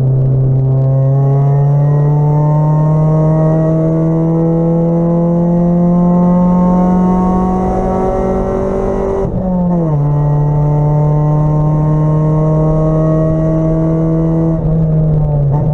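Acura Integra race car's engine heard from inside the cabin under full acceleration. Its pitch climbs steadily for about nine seconds, then drops sharply at an upshift and holds fairly steady. Near the end the pitch dips briefly and comes back up.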